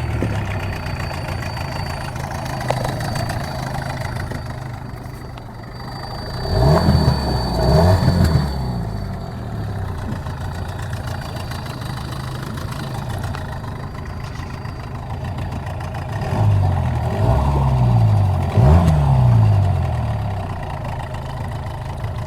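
Parsun outboard motor idling and revved up twice, each time a few quick rises and falls in engine speed. A thin, high, steady whistle rides over the engine; the owner notes it comes back as the motor warms up.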